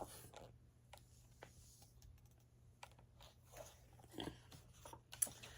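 Near silence with a few faint clicks and soft rustles, from the pages of a picture book being handled and turned.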